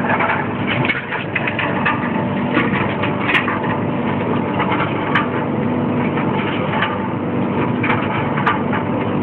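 Reverse vending machine for bottles and cans running: a steady mechanical hum with irregular clicks and clatter.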